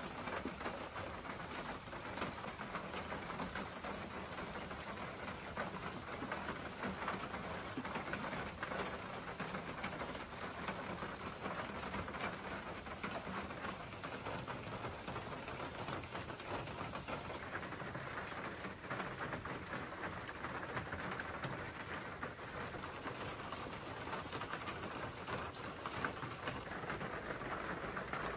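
Steady rain falling on the yard, a dense, even patter of drops.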